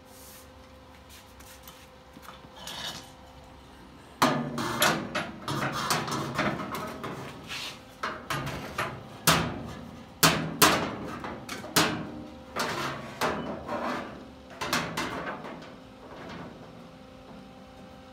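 Irregular metallic knocks and clanks from a large locking clamp being worked onto the steel roll pan's edge to pinch it against the truck bed, starting about four seconds in and stopping near the end.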